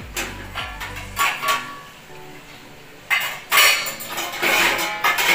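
Metal kitchen pots and utensils clinking and clattering in a string of ringing knocks. They come thicker and louder in the second half.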